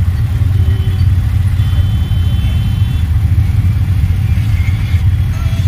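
Auto-rickshaw engine idling, a steady low pulsing rumble heard from inside the open passenger cab.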